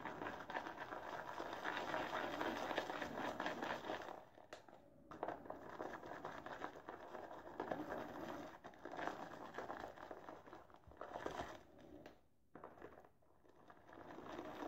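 Boar-bristle shaving brush churning soap lather in a bowl: a wet, crackling swish as the lather is built up with added water. It stops briefly about four seconds in and eases off near the end.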